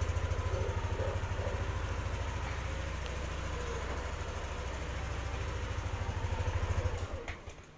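Yamaha NMAX 155 scooter's single-cylinder engine idling steadily, then stuttering and cutting out about seven seconds in. The engine is being shut off remotely by its GPS tracker's engine-kill relay after a "555" text command.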